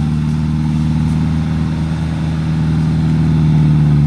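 Engine of an old 4x4 held at steady high revs under heavy load while the vehicle is bogged in deep mud, pulling hard without getting free.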